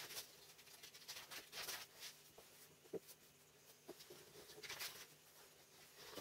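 Faint handling sounds: printed paper sheets rustling and a few light taps and clicks from a pencil and metal square on a wooden workbench, with one sharper tap about three seconds in.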